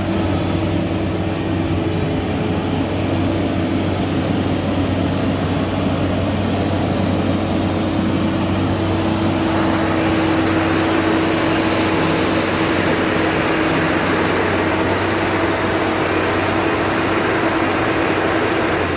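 Skid steer engine running steadily, with a constant whine over its low hum; about halfway through a louder hiss joins in.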